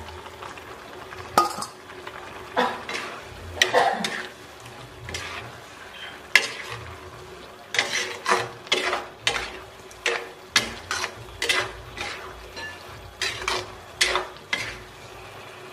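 A spatula scraping and knocking against a nonstick wok as pieces of liver are stirred into frying chili paste, with a light sizzle underneath. A few sharp knocks come in the first few seconds, then a quick run of scrapes through the second half.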